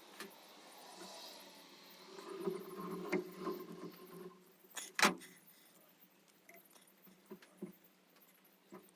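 Hands working with tools and materials: rustling and scraping with a few clicks, one sharp knock about five seconds in, then a few light taps.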